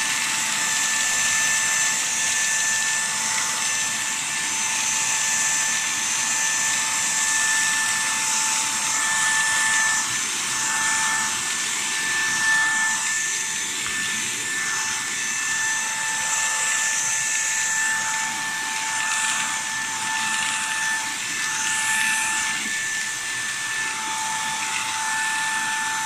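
Vax ONEPWR Blade 4 cordless stick vacuum running on normal power in handheld mode, a steady high motor whine over rushing air as it sucks biscuit crumbs off carpet. The whine wavers for a few seconds midway, then steadies again.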